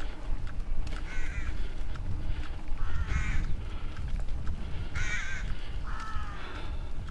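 Mountain bike rolling over a dirt singletrack, the bike rattling and clicking over the bumps under a steady rumble of wind and trail noise on the helmet-camera microphone. Four short harsh calls ring out, about one, three, five and six seconds in.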